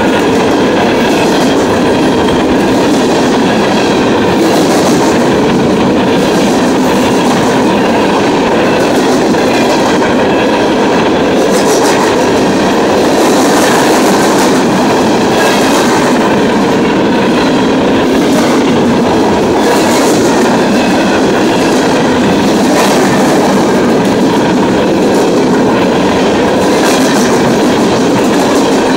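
A CSX freight train's hopper cars roll past at close range and at speed, making a loud, steady rumble, with the wheels clacking over the rail joints again and again.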